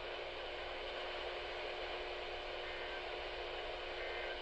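Dead air on a weather radio receiver: steady faint hiss and static with a low steady hum, no voice or tones.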